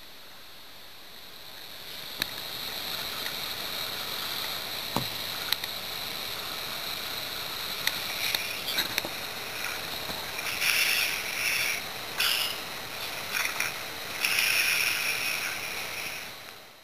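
Snoring, faint under a steady hiss at first, with louder noisy breaths about ten seconds in and again near the end.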